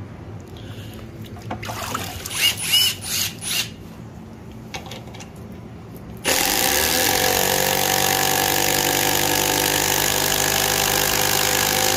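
Metabo HPT Triple Hammer cordless impact driver, still wet from being submerged in a bucket of water, running steadily under load as it drives into a wooden block for about the last six seconds, then stopping abruptly. Before that come a few brief knocks and clatter.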